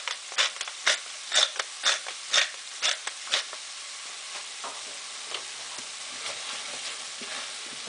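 Black pepper being ground from a hand pepper mill in about eight short grinding strokes, which stop about three and a half seconds in. Under them and after, ground bison sausage and fresh herbs sizzle steadily in a stainless steel pan and are stirred with a wooden spoon.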